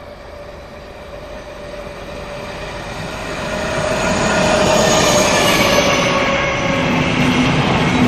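ČD class 754 diesel-electric locomotive hauling an express passenger train, approaching and passing at speed: the engine and wheel noise grow steadily louder over the first four seconds or so, and after the locomotive passes about five seconds in, the coaches rush and clatter by.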